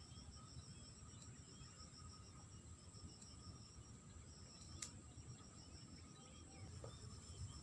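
Insects chirping faintly and steadily, one with a rapid pulsing high chirp, over a low background rumble, with a faint click about five seconds in.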